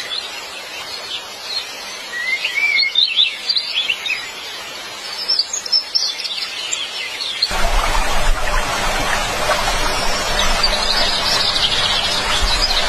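Birds chirping in short calls. About halfway through, a louder steady noise with a low rumble comes in under them.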